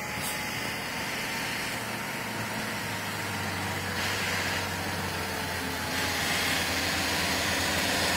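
Heavy truck approaching under the load of a long wind turbine blade, its diesel engine running with a steady low hum that grows gradually louder as it nears.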